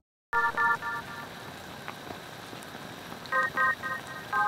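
A pot of milkfish sinigang soup at a rolling boil, bubbling steadily. Over it come short groups of three bright, quick electronic notes, once near the start and twice near the end, the opening of background music.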